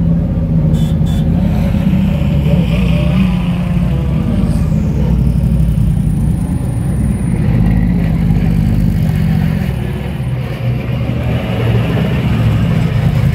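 GT race car engines running at low revs as the cars roll slowly past one after another: a loud, steady rumble that eases briefly about ten seconds in.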